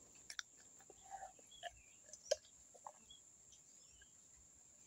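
Faint gulping and swallowing clicks as a person drinks from a metal tumbler, with a few faint bird chirps behind.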